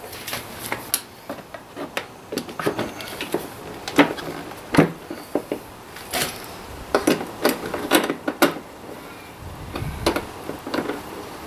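Irregular clicks, taps and knocks of a hard plastic motorcycle side panel being handled and pressed back into place against the frame of a Kawasaki KLR650.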